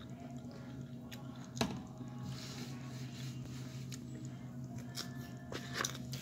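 Mouth sounds of eating steak-topped tortilla-chip nachos: biting and chewing with a few sharp crackles, the loudest about one and a half seconds in and a cluster near the end. A steady low hum runs underneath.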